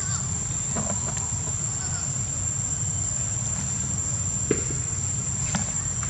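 Steady, high-pitched insect drone over a low rumble, with a few faint short sounds scattered through it.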